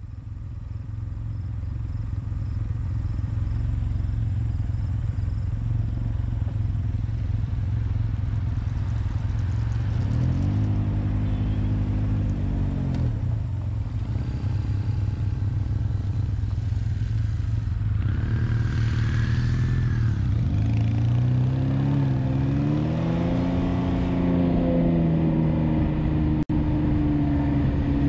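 Motorcycle engines running, a steady low rumble whose pitch rises and falls briefly about a third of the way in, then climbs steadily in the last third as a bike pulls away and accelerates.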